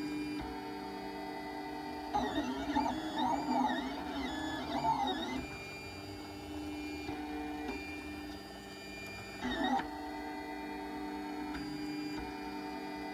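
PrintrBot 3D printer's stepper motors running through a print, giving off a set of steady tones. For about three seconds starting two seconds in, the tones grow louder and sing-songy, sliding up and down in pitch as the head moves back and forth.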